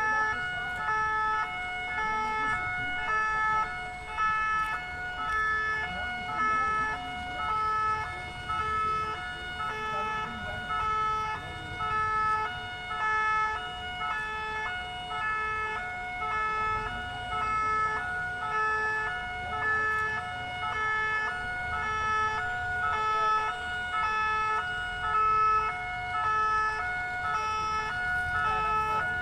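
Two-tone emergency vehicle siren, the French 'pin-pon' type, sounding steadily as it switches back and forth between two notes, over a low background rumble of crowd and street noise.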